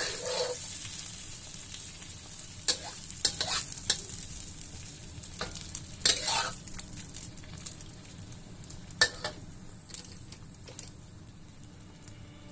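Beaten eggs sizzling in hot oil in a wok while a metal spatula stirs and scrapes them, with a few sharp knocks and scrapes of the spatula against the pan, the loudest about six and nine seconds in.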